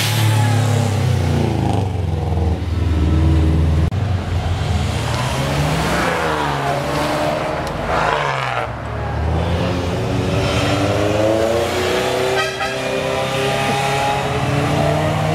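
Car engines revving as cars drive off past the crowd, the pitch rising and falling several times, then climbing more slowly near the end.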